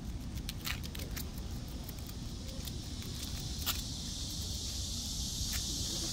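Scattered light clicks, then about halfway through a steady high cicada buzz sets in and grows louder, over a low rumble.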